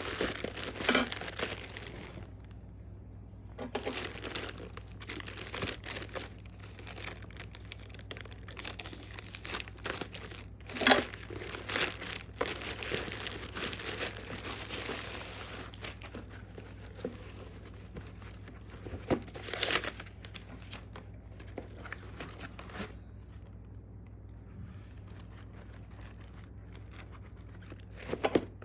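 Shoe packaging being unwrapped: wrapping crinkling and rustling in irregular bursts, with a few sharper, louder rips.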